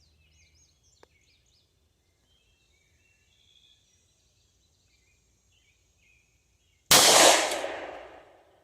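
A single shot from a 9mm Springfield Hellcat pistol about seven seconds in, its report dying away over about a second and a half. Faint birdsong before it.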